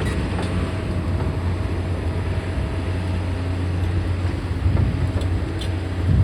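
Diesel engine of a tracked demolition machine running with a steady low drone.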